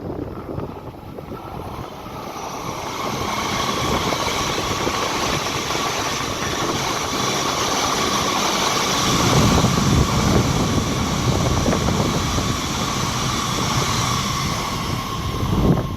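A shinkansen train running through the station: its rumble and whine build over a few seconds, hold loud and steady, then fall away suddenly at the end.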